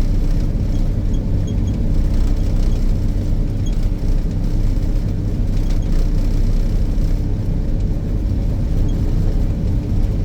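Snowcat trail groomer's engine running steadily under load, a low droning rumble heard from inside the cab.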